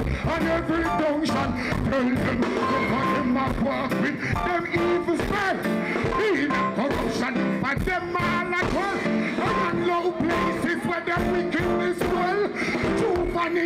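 Live reggae music: a male vocalist sings into a microphone over a full band, heard through the stage sound system.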